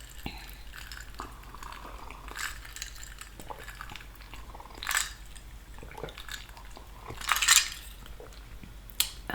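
Close-miked mouth sounds of chewing creamy Alfredo pasta: many soft wet clicks and smacks, with three louder hissy bursts about two and a half, five and seven and a half seconds in.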